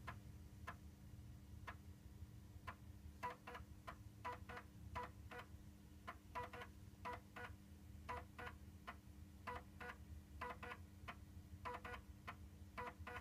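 3.5-inch floppy drive of an Akai S5000 sampler reading a disk as it loads files: the head stepper ticks as it seeks across tracks. The ticks come about one to two a second, often in quick pairs, over a steady low hum.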